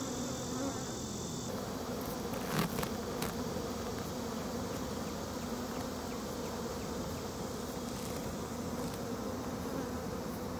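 Honeybees humming steadily around an opened hive, a dense, even buzz of many bees, with a couple of faint clicks about two and a half to three seconds in.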